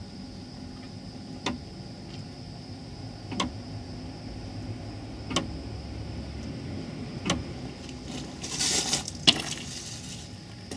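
Brake bleeding at a rear caliper while the brake pedal is pumped in short strokes: a sharp metallic click about every two seconds, then a short rustling hiss near the end.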